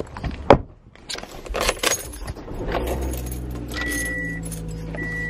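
A car door shuts with a single knock, then a bunch of keys jangles as the key goes into the ignition of a Toyota. The engine starts and idles with a steady low hum while a warning chime beeps three times.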